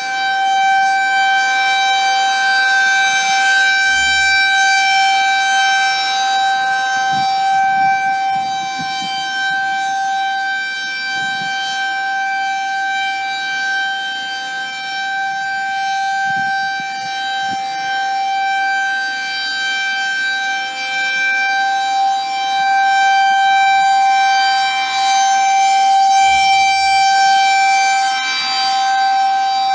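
Federal Signal 2001 rotating tornado siren sounding a steady, single-pitch wail during its routine test, its loudness swelling and fading slowly as it turns.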